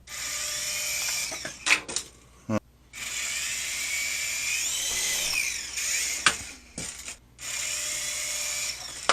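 Syma W25 toy helicopter's small electric motors and rotors whirring in three runs, each starting up and cutting off; in the long middle run the pitch rises and then falls. Between the runs there are a few sharp knocks.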